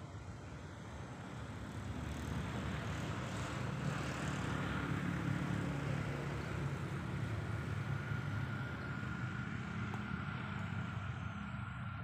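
Distant engine droning. It grows louder about two seconds in, then holds steady with a thin, steady whine over it.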